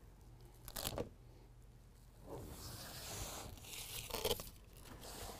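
Hook-and-loop fastener strip being handled and pressed along the edge of a carpeted bed-liner mat: a short crackle about a second in, then about three seconds of rasping, loudest near the end.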